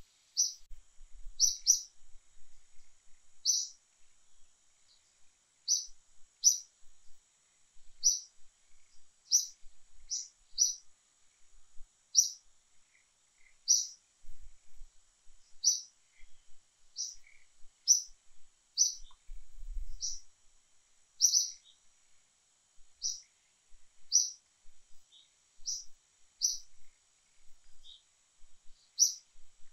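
A bird chirping: short, high, clipped chirps repeated irregularly about once a second, over a faint steady high hiss.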